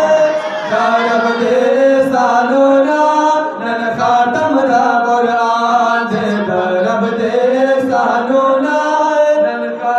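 Men singing a Pashto naat through microphones, drawing out long melodic held notes.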